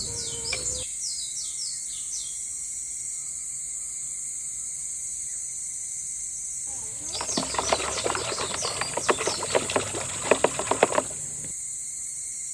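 Birds chirping over a steady high hiss of outdoor ambience, with a run of quick rattling clicks lasting about four seconds in the middle.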